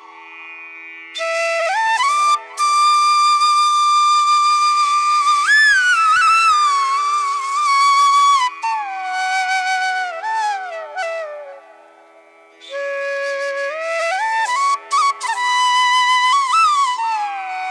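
Background music: a solo flute melody with sliding ornaments between notes, over a steady held drone. There are brief pauses in the melody at the start and about twelve seconds in.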